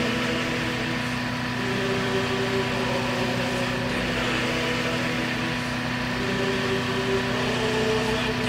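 Small gasoline engine running steadily at a constant speed, with a second higher tone wavering faintly on top.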